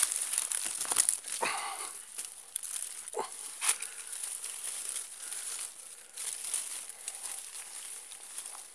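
Footsteps crunching and rustling through dry leaf litter, with the phone brushing past vegetation, making irregular crackles and clicks. Two short pitched sounds come about one and a half and three seconds in.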